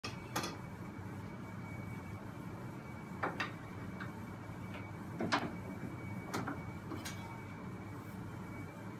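Scattered light knocks and clicks of wooden boards and hand tools being picked up and set down on a wooden workbench, about nine in all, the loudest a little after five seconds in. Underneath runs a steady low hum with a faint high whine.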